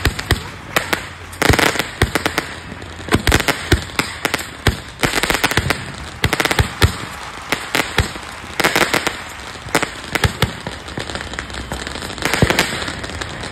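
Rapid clusters of sharp cracks and pops, one burst after another at short irregular intervals.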